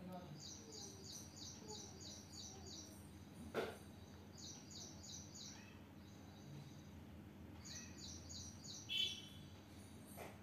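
Faint bird chirping: three runs of quick, repeated high notes, with a single sharp click about three and a half seconds in.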